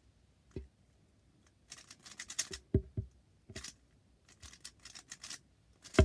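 A lubed 3x3 speed cube (YJ Yulong V2 M) being turned by hand: scattered clicks and clacks of its plastic layers, in quick runs through the middle, with the loudest snap at the very end.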